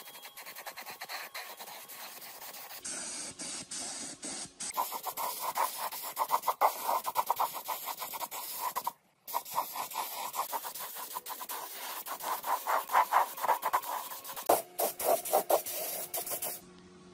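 Rapid, repeated scratching and scrubbing on rusty engine parts during restoration work, in several short clips that break off abruptly.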